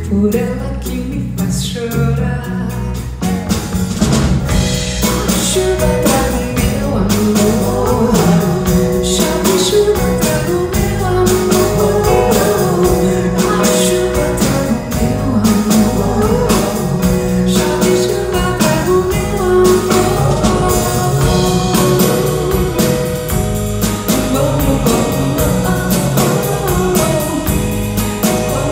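Live pop band playing: a woman singing lead over drum kit and guitars, the band growing fuller and louder about four seconds in.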